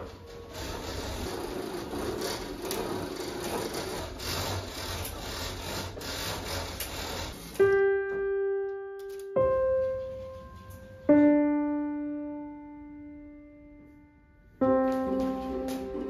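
Soft background piano music: a few slow, widely spaced notes that ring out and fade, following several seconds of an even, rustling hiss.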